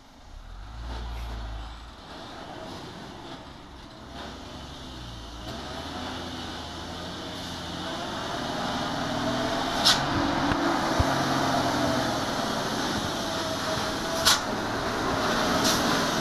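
Diesel engine of a heavily loaded Mitsubishi Fuso dump truck running as the truck creeps closer, growing steadily louder. Twice a short, sharp sound stands out above the engine.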